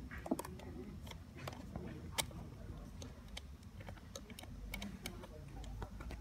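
Scattered light metallic clicks and taps from a scooter battery cable's terminal lug and small screws being handled while hooking up a new battery, with two sharper clicks near the start and about two seconds in.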